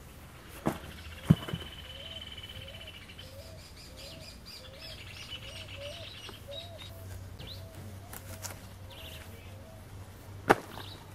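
Birds calling, one of them repeating a short, low, upturned note about twice a second for several seconds, with higher chirps over it. A few sharp knocks from the knife and the freshly cut prickly pear pads come near the start and once near the end; the one just after a second in is the loudest.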